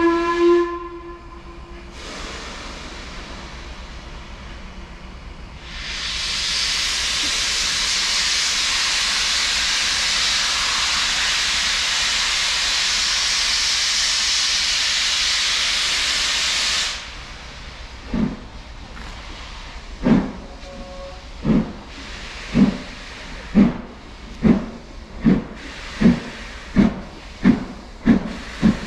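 LMS Pacific steam locomotive 6233 Duchess of Sutherland setting off. It gives a short whistle, then a long loud hiss of escaping steam that stops about 17 seconds in. Then come exhaust beats that start about two seconds apart and quicken to under a second apart as it pulls away.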